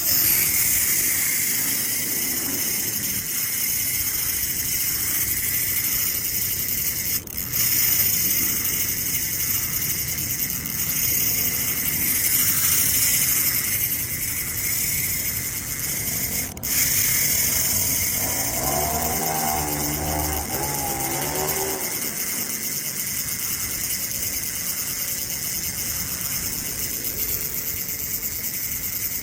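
Dense evening insect chorus, a steady high buzzing that breaks off briefly twice. For a few seconds in the second half, a lower pitched sound wavers in and out under it.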